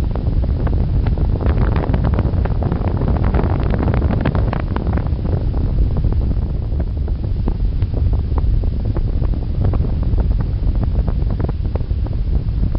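Rushing airflow over the microphone of a hang glider's onboard camera in gliding flight: a loud, steady wind roar with frequent crackles.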